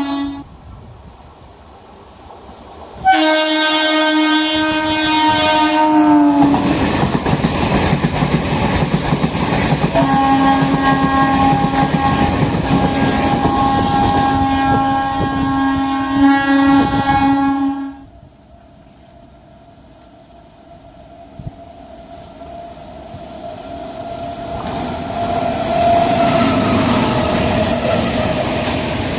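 Indian Railways train horn blasting, once for about three seconds and dropping in pitch at its end, then again for about eight seconds, while the train rushes past with its wheels clattering over the rail joints. The horn and rumble cut off together, and after a lull another train's rumble builds up.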